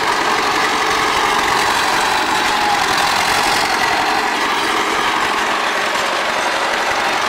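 Diesel engine of a DT-75 crawler tractor, taken from a combine harvester, running steadily as the tractor crawls through mud on its tracks.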